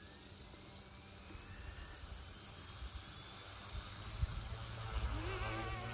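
Goosky S2 RC helicopter's brushless motors spooling up under a governor: a faint whine that rises in pitch and grows steadily louder. About four seconds in a steady low hum joins, and near the end a wavering whine as the rotors come up to head speed.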